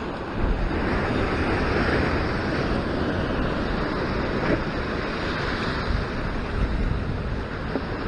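Sea surf breaking on a rock ledge and washing over the rocks, a steady rushing wash that swells about half a second in, with wind buffeting the microphone.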